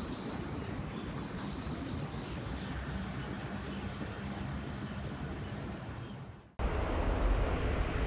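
Outdoor city street ambience: a steady background of distant traffic with a faint low hum, and a quick run of high chirps in the first few seconds. About six and a half seconds in it cuts to a louder, lower rumble.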